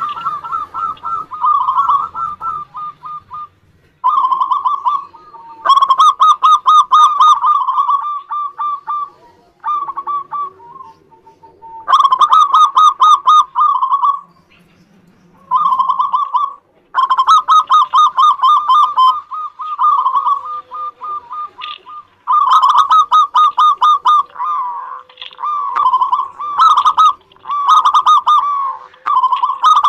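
Zebra dove (perkutut) singing: phrases of rapid, staccato cooing notes, repeated again and again with short pauses between them, running together more densely near the end.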